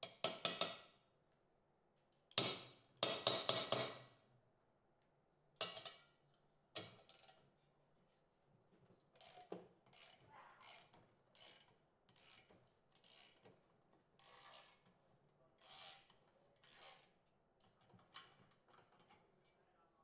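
Ratchet wrench with a hex-bit socket working on the steering knuckle's Allen head brake-shield screws. Loud metallic knocks and clatter in the first few seconds, then a run of softer ratchet strokes, roughly two a second.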